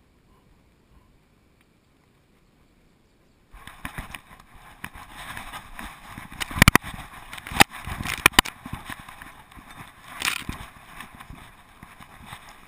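Near silence for a few seconds, then rustling and scraping from a GoPro housing worn by a moving dog, with a few sharp knocks against the camera.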